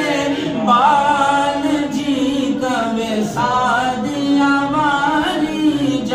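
A man singing a naat unaccompanied, drawing out long held notes that waver and bend in pitch, phrase after phrase with short breaks between.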